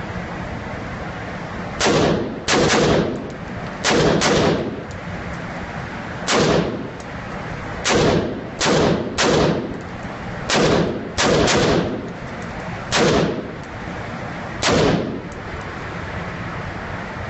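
Rifle fired one shot at a time, about a dozen shots at uneven intervals, sometimes two in quick succession, each followed by a short echo off the walls of the indoor range.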